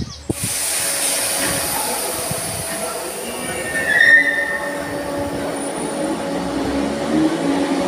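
Merseyrail Class 508 electric multiple unit pulling out of an underground station platform: a steady rush of running noise, with a brief wheel squeal about four seconds in and a low hum strengthening near the end as the train picks up speed.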